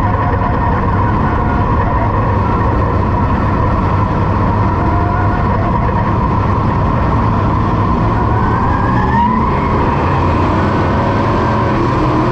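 Dirt late model race car's V8 engine heard from inside the cockpit, running loud and steady, climbing in pitch about nine seconds in as the car accelerates.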